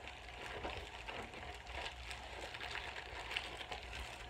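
Faint rustling and a few light clicks from beauty products and their packaging being handled, over a steady low room hum.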